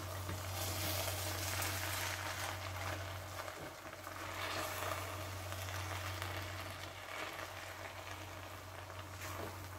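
Black slotted spatula stirring and scraping through cooked plov (rice with carrot and beef) in a deep nonstick pan, in uneven waves of rustling strokes. A steady low hum runs underneath and drops out briefly about three and a half seconds in.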